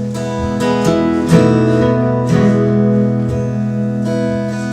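Acoustic guitar strumming sustained chords in a song's instrumental gap, the strings re-struck about once a second.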